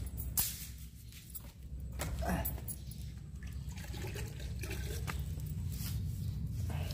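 Shallow leftover water on the floor of a drained swimming pool, splashing and trickling. There is a short sharp knock about half a second in.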